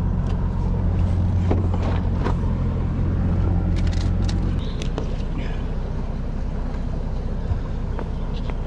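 Bass boat outboard engine running at low, idle-like speed as the boat moves slowly, a steady low hum. The hum steps down a little about four and a half seconds in.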